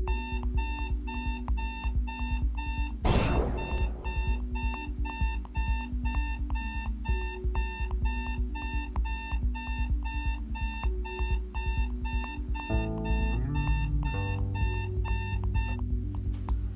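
Electronic alarm clock beeping, about two beeps a second, over music with a bass line and a steady drum beat. A whoosh sounds about three seconds in, and the beeping stops near the end.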